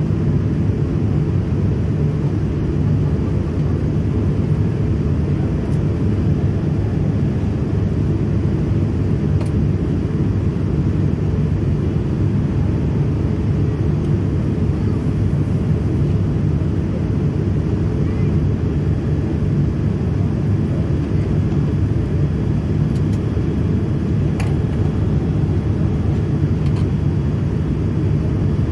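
Steady low rumble of cabin noise inside a Boeing 787-9 airliner in flight, airflow and engine noise heard through the cabin, during the descent toward landing.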